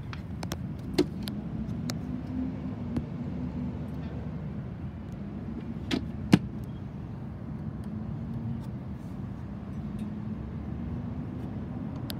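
Indian Thunder Stroke 116 V-twin motorcycle engine idling with a steady low rumble. Over it come a handful of sharp plastic clicks and taps as the lower fairing vent is handled, the loudest about six seconds in.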